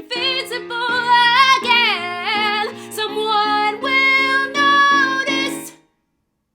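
Female voice singing a sustained, sliding melodic line over instrumental accompaniment, with held notes toward the end; the music cuts off abruptly just before six seconds in, leaving silence.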